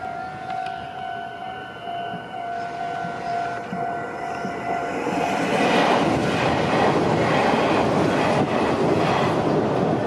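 Japanese railway level crossing's electronic warning bell ringing in a steady repeating clang. From about five seconds in, a Meitetsu electric commuter train runs past close by, and its rushing wheel and running noise rises over the bell.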